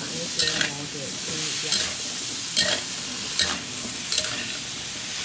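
Chestnuts and garlic frying in oil in a wok with a steady sizzle, while a metal spatula scrapes and tosses them with sharp strokes about once a second.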